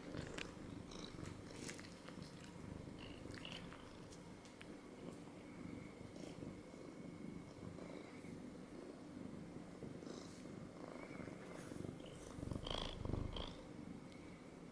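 Domestic cat purring steadily, close up, with scattered soft rustles and clicks as its fur brushes against the camera, and a louder rustling bump near the end.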